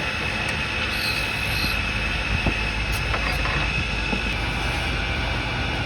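Wood lathe running steadily: a constant high whine over a low mechanical rumble, with a few light clicks.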